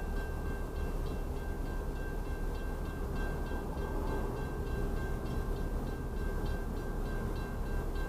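Freight train at a grade crossing: a steady low rumble with the crossing bell ringing faintly at about two strikes a second, heard through a car's closed cabin.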